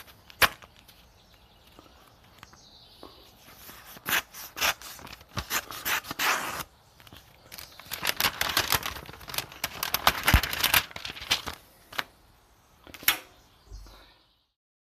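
Paper envelope being slit open with a letter opener forged from a steel nail: rasping paper tearing in two stretches, about four seconds in and again from about eight to eleven seconds. A few sharp clicks and taps come between them, and the sound cuts off suddenly near the end.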